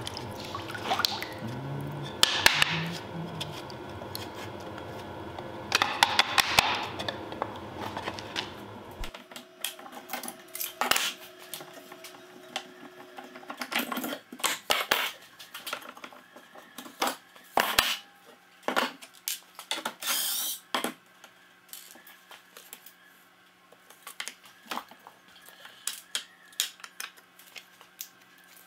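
Water sloshing as thin wooden strips are swished about in a plastic tub, soaking them for bending. About nine seconds in the sound changes suddenly to scattered clicks and knocks of bar clamps and wood being handled on a workbench, with a brief high squeak about twenty seconds in.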